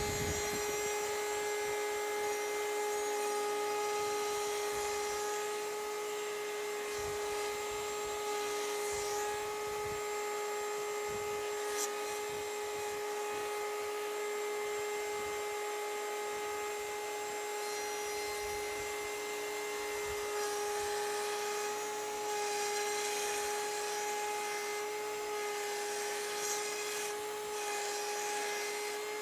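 Table-mounted router running at a steady high-pitched whine while a 1/4-inch straight bit cuts a circular groove in an MDF panel. The rough cutting noise swells and fades as the panel is turned.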